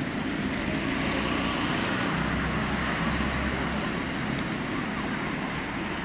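Steady city traffic noise, with a low rumble that swells between about two and four seconds in.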